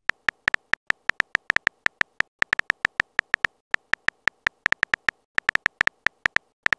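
Keyboard click sound effect of a texting app, one short sharp tap for each letter as a message is typed out, about six or seven a second in an uneven rhythm.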